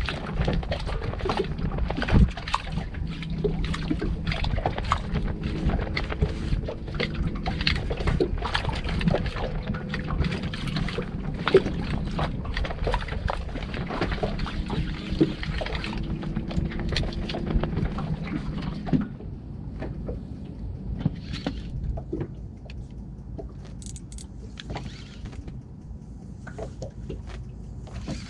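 Water lapping and slapping against the hull of a small boat, with frequent sharp knocks and clicks, quieter after about 19 seconds.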